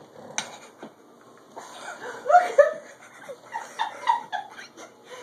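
A frightened calico cat, arched and puffed up, giving short defensive yowls, the loudest two coming about two and a half seconds in.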